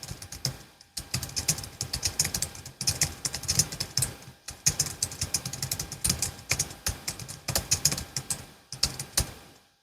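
Fast typing on a Logitech MX Keys S low-profile scissor-switch keyboard: quick runs of key clicks, with brief pauses about a second in and halfway through, tailing off at the very end.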